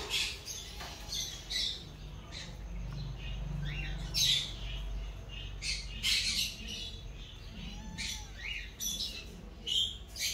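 Newborn kittens squeaking while they nurse: short, high-pitched squeaks and chirps, scattered irregularly.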